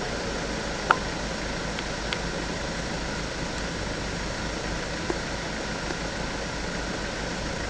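Steady hum and hiss of a vehicle standing with its engine running, with one sharp click about a second in and a few fainter ticks after it.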